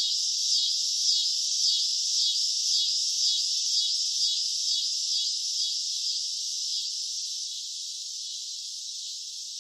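Cicadas buzzing in a high, continuous drone that pulses about twice a second; the pulses fade out about two-thirds of the way through, leaving a steady buzz that slowly gets quieter.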